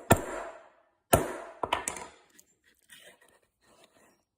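Small ball peen hammer tapping a steel detachable chain link on the horn of a bench anvil: two sharp metallic taps about a second apart and a lighter third, each ringing briefly, closing the link's hook up a little to tighten it. Faint clicks of the link being handled follow.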